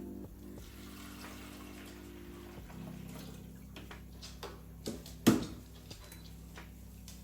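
Running water with small clinks, over a low steady hum, and one sharp knock about five seconds in.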